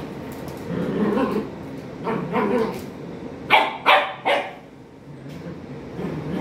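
A young dog growling in repeated low rumbles while tugging on a cloth, with three sharp barks in quick succession about halfway through.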